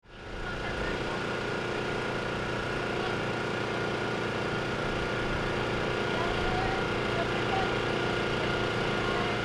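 Steady engine-like hum running evenly, with faint voices in the background.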